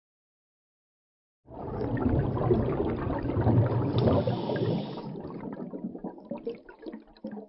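Rushing water that starts suddenly about a second and a half in, runs loud for a few seconds, then dies down into scattered gurgles.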